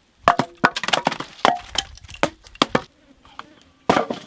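Thick firewood logs knocking and clattering against each other as they are handled and thrown down onto a pile: a quick run of sharp wooden knocks for a couple of seconds, a short pause, then another cluster of knocks near the end.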